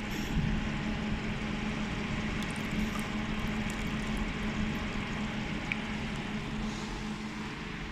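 Water running from a clear hose into a partly filled plastic bucket as the laser welder's cooling system pumps it out of its water outlet. Under it, a steady hum from the machine's pump and cooling fans.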